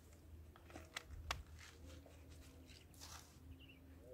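Near silence with a steady low hum. Two faint sharp clicks come about a second in, and a brief soft rustle near three seconds.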